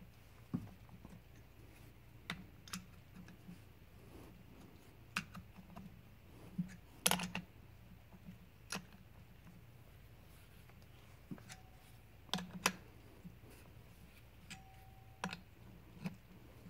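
Adjustable wrench clinking on a thread tap and the engine block as it is set on the tap, turned and set back on again, threading drilled oil-galley holes in a GM 5.3 V8 block. Scattered, irregular metal clicks and knocks, the loudest a cluster about halfway through, a couple ringing briefly.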